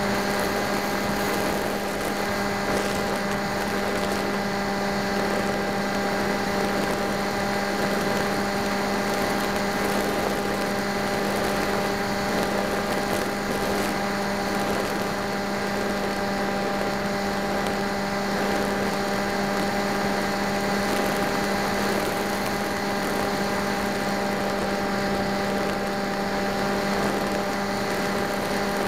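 Model aircraft's motor and propeller running at a steady, unchanging pitch, heard through the onboard camera's microphone with a rush of air noise over it.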